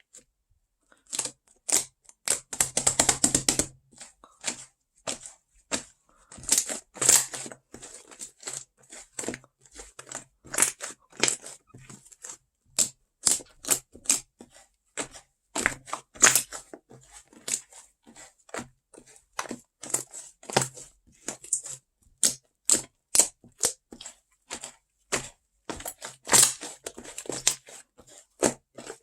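Fluffy slime being squished and poked by hand, making irregular sticky clicks and pops, with longer crackling stretches about two to four seconds in and again around seven seconds.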